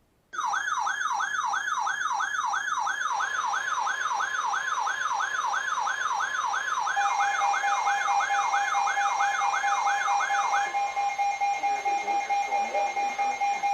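Electronic emergency alert tone, warbling rapidly up and down about two and a half times a second. About seven seconds in, a steady alert tone joins it. The warble stops a few seconds later, and the steady tone carries on to near the end.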